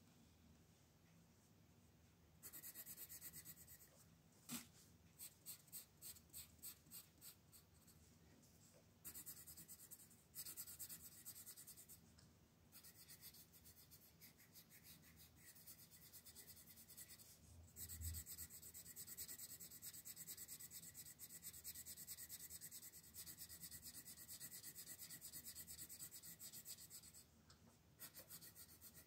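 Light blue coloured pencil shading on paper, a faint scratchy rasp. It comes as a run of short, separate strokes a few seconds in, then longer continuous back-and-forth shading, with brief pauses between.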